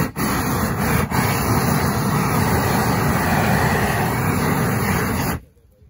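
Handheld flame torch blasting a steady roaring jet of flame while singeing the fur off an opossum carcass. It dips briefly a couple of times in the first second, then cuts off abruptly about five and a half seconds in.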